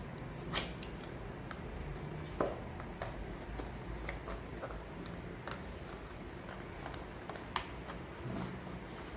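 Cardboard retail box of a Mi Band 4 being handled and opened by hand: paperboard sliding and rubbing, with scattered light taps and clicks, the sharpest about half a second, two and a half and seven and a half seconds in.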